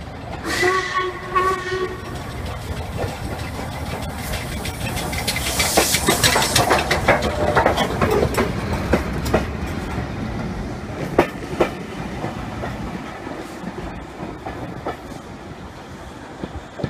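Steam locomotive whistle sounding briefly, a chord of several tones, about half a second in. Then the steam-hauled train passes close by with steam hiss and a rapid clatter of wheels over rail joints, loudest midway, fading as it draws away.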